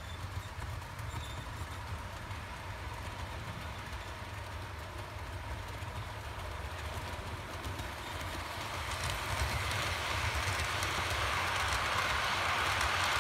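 Model passenger train running on the layout's track, its wheel and running noise growing louder from about eight seconds in as it approaches and passes, over a steady low hum.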